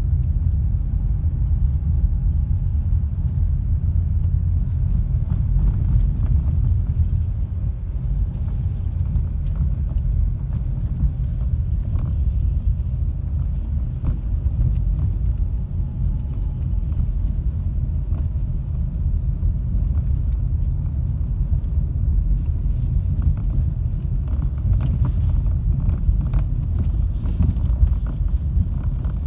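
Low road and drivetrain rumble of a facelifted Ford Focus 3 on the move, with faint scattered knocks from the power steering rack. The knocking, which the owner blames on the rack, comes more often near the end.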